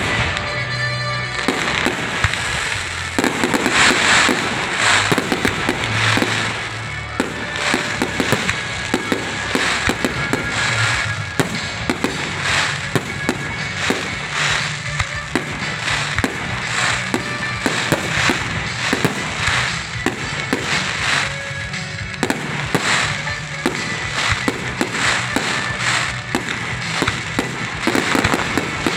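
Fireworks display: aerial shells bursting in quick succession, sharp bangs several times a second overlapping with crackle.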